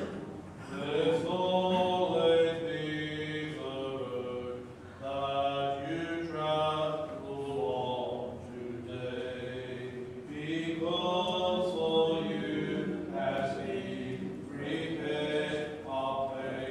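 Byzantine chant of the Greek Orthodox funeral service, sung unaccompanied by men's voices in long melodic phrases with short breaks between them.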